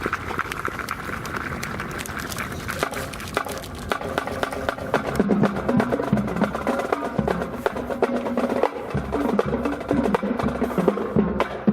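Marching band music: drums and percussion beating a fast, dense rhythm, with a low brass line coming in about five seconds in.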